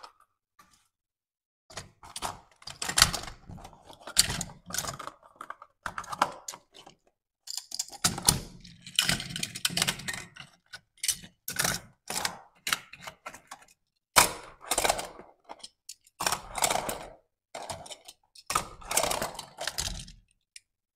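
Die-cast toy cars and their cardboard boxes being handled inside a cardboard box: irregular clicks, knocks and short scrapes as the cars are picked up, set down and slid against each other and the cardboard.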